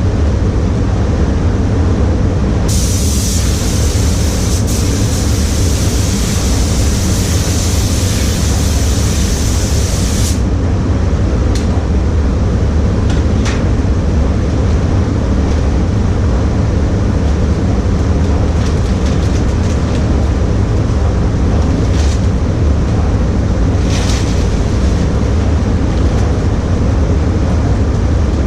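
Automotive spray gun hissing steadily for about eight seconds as pearl coat is sprayed and blended onto a car's side panel, then cutting off, with a few short bursts later. Under it runs the steady low rumble of the paint booth's ventilation.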